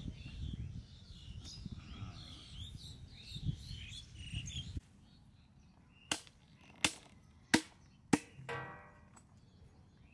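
Birds chirping over a low rumble, which cuts off about halfway. Then four sharp chops of a large knife through raw mutton onto a wooden tree-stump block, about two-thirds of a second apart.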